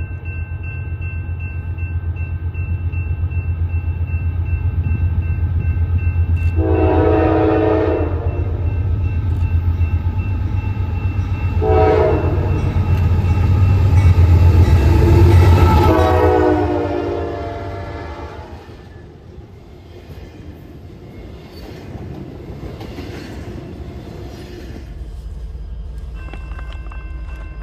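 Diesel freight locomotive approaching with its engine rumbling and sounding its air horn: long, long, short, then a final long blast, the grade-crossing signal. After the horn the sound drops off as the train rolls past, wheels clicking on the rails.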